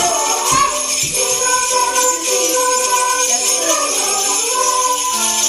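Sleigh bells shaken in a continuous jingle along with music of held notes and singing voices.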